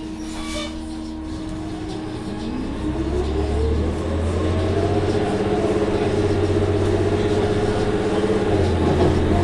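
Orion VII CNG bus's Cummins ISL-G natural-gas engine and Allison B-400R automatic transmission pulling away and accelerating, heard from on board. A whine climbs steadily in pitch and the bus grows louder, the pitch dips briefly about nine seconds in and then starts to climb again.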